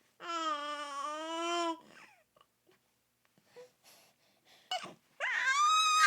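A three-month-old baby cooing: one long drawn-out coo, then after a pause of a few seconds a higher-pitched coo that rises and then holds.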